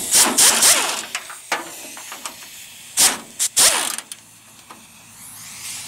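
A handheld power tool spinning a socket on rusty bolts, run in two short bursts: one just after the start and one about three seconds in. Each burst winds down in pitch as the tool lets off, with a few small clicks between them.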